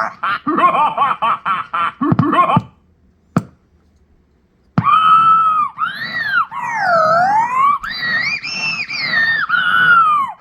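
Circuit-bent toy sound box playing its sampled evil laugh as a fast stutter. After a pause and a click, its sampled scream plays on, its pitch swept up and down as the speed control is turned.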